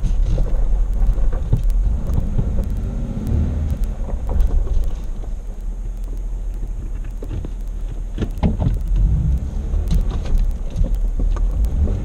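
A vehicle driving slowly along a rough dirt road: steady low engine and road rumble, with scattered small knocks and clicks as it goes over the uneven surface.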